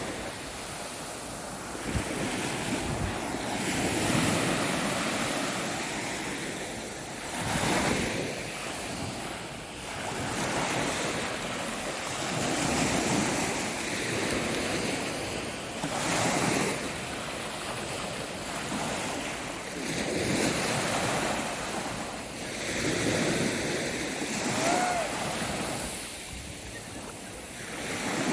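Sea waves breaking on the shore, the surf swelling and falling away every few seconds, with wind buffeting the microphone.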